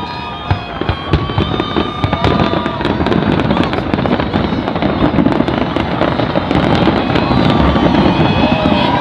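Fireworks display going off in a dense, continuous crackle of many rapid bursts, growing gradually louder.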